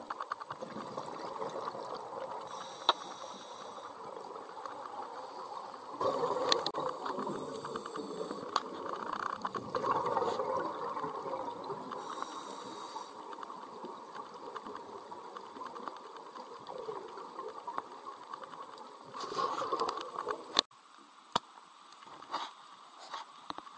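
Scuba diver's breathing heard underwater: a regulator hiss recurring every few seconds on the inhale, and the rushing burble of exhaled bubbles. Near the end the sound drops away to a quieter background with a few sharp clicks.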